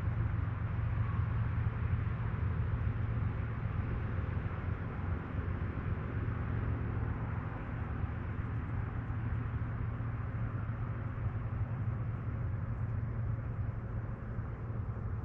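Steady rushing of the Middle Fork of the Flathead River, a continuous even noise with a deep low rumble underneath.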